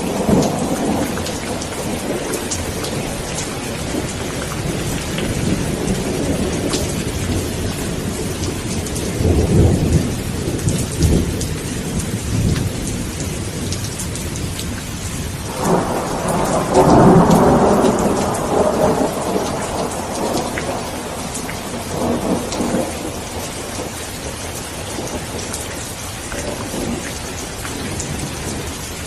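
Steady rain with rolling thunder: a rumble about ten seconds in, then a louder, longer roll of thunder starting around sixteen seconds that dies away over a few seconds, with fainter rumbles after.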